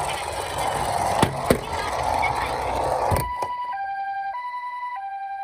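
Rattling noise with a few sharp knocks, which stops about three seconds in. A toy's electronic ambulance-style two-tone siren then sounds clearly, switching between a high and a low note about every half second.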